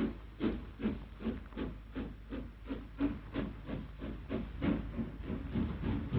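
Steam locomotive No. 6207, an LMS Princess Royal class Pacific, starting away under its own steam: exhaust chuffs in even beats that quicken from about two to three a second as it gathers speed, over a steady hiss.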